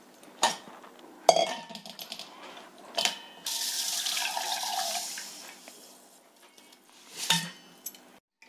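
Soaked millet and its soaking water poured through a plastic mesh strainer into a steel bowl, splashing for about two seconds from a little past the middle. A few knocks of the dishes being handled come before the pour and once near the end.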